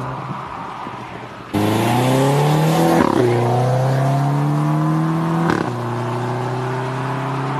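Mercedes-Benz W205 C200's turbocharged four-cylinder engine through an Armytrix turbo-back valvetronic exhaust, accelerating under load and louder from about a second and a half in. The note climbs, drops at an upshift about three seconds in and again about five and a half seconds in, with a short crack at each shift, then climbs again.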